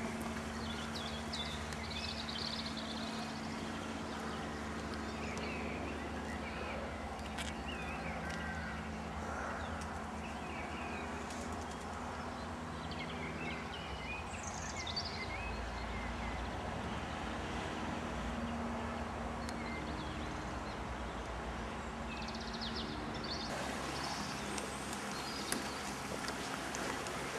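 Steady rushing of a river in flood, with small birds chirping and singing over it.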